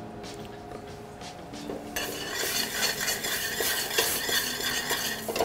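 A spoon stirring turkey chili in a stainless steel stockpot on the stove, scraping and clinking against the pot over a sizzle, starting about two seconds in.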